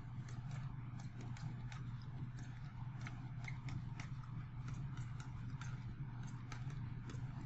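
Stylus tapping and scratching on a tablet surface while handwriting, a run of small irregular clicks over a low steady hum.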